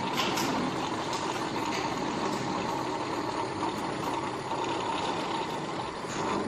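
Volkswagen Worker 15.180 truck's diesel engine idling steadily.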